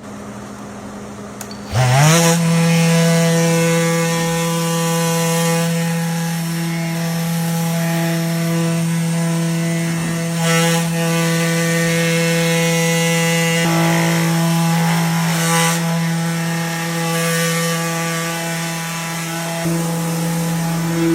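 Festool electric sander starting up about two seconds in, its motor rising quickly in pitch, then running at a steady hum while sanding cabinets.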